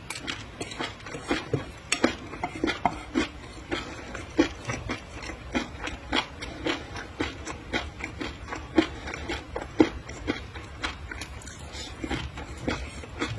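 Close-miked chewing of seafood: a steady run of short, wet mouth clicks and smacks, several a second at an uneven pace.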